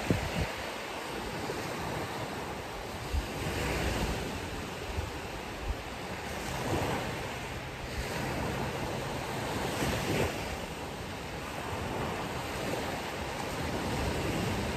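Ocean surf washing onto a beach, a steady rush that swells every few seconds as waves break, with some wind buffeting the microphone.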